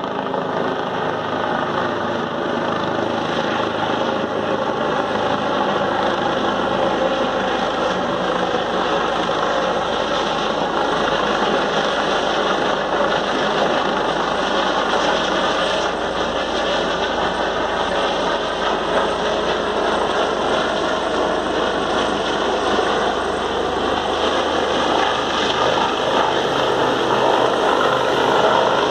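Helicopter flying low, its rotor and engine running steadily and growing a little louder near the end.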